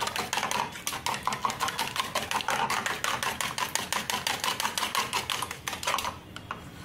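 Raw eggs being beaten by hand with a metal utensil in a small ceramic bowl: rapid, even clicking of metal against the bowl that stops about six seconds in.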